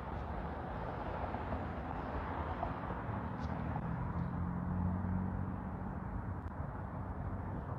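Outdoor street traffic noise, with a passing vehicle's low engine hum growing in the middle and fading.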